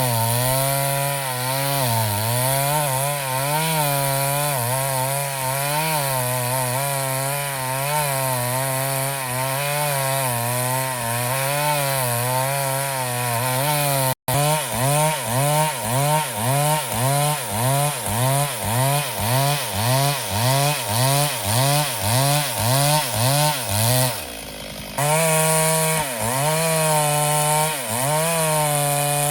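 Chainsaw cutting wood, its engine pitch sagging and recovering under load. After a sudden break about 14 seconds in, it bogs and picks up in a quick regular rhythm, about twice a second. Near the end it falls back briefly for about a second before running on.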